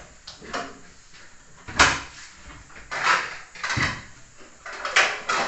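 A handful of sharp knocks and clunks from kitchen things being handled, such as pots, bottles or cupboard doors. The loudest comes about two seconds in, and the rest fall roughly a second apart.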